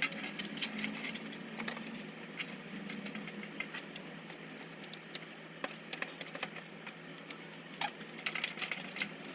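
Small, irregular clicks and taps of computer parts being handled during PC assembly, with a quick run of clicks near the end.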